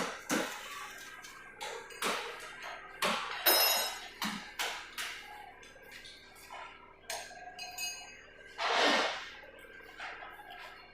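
Metal tools clinking and knocking against motorcycle parts in a service workshop: scattered taps, a couple of them ringing, and a short swelling hiss about nine seconds in.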